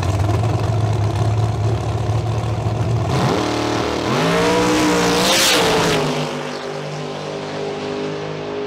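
Big-tire drag race car's engine running loud and low at the starting line, then launching about three seconds in with a rising engine note at full throttle. The sound is loudest just after the launch, then settles to a quieter steady drone as the car pulls away down the track.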